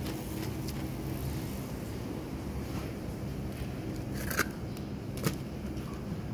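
Supermarket background noise: a steady low hum and rumble, with two short sharp clicks, one about four seconds in and another about a second later.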